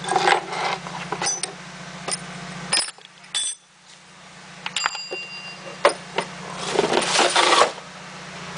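Rustling, clattering handling noise and light metallic clinks as a work light and its extension cord are handled, with one short ringing clink about five seconds in. Under it runs the steady low hum of the 1995 Mitsubishi Eclipse RS engine idling, which drops out briefly about three seconds in.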